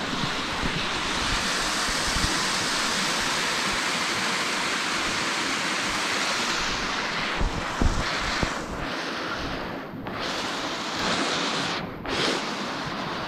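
Mountain stream rushing below a wooden footbridge: a steady hiss of water that comes and goes a little in the second half. A few low thumps come near the middle.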